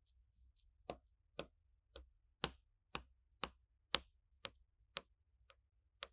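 A serrated knife sawing down through a chocolate sponge cake on a ceramic plate, giving sharp, even clicks about twice a second as each stroke meets the plate.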